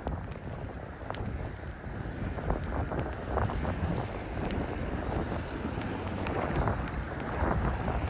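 Wind buffeting the microphone while riding on a wet road in the rain, a rough, gusty rush with scattered small clicks.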